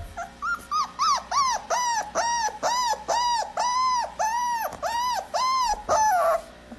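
Small long-haired dog whimpering in a quick, even run of short rising-and-falling cries, about two to three a second, ending on a longer falling whine.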